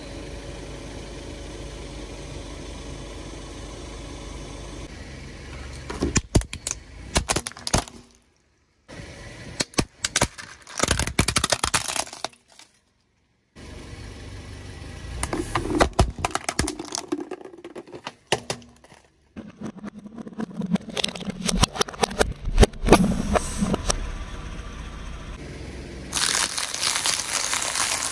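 Car tyre rolling over and crushing objects: the car's engine idling at first, then bursts of sharp cracks and snaps of plastic breaking, broken by brief silences. Near the end, a dense, continuous crunching as wafer ice-cream cones are crushed.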